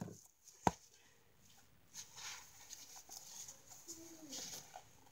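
Handling noise: a single sharp tap about a second in, then faint rustling as hands and costume fabric brush against the camera.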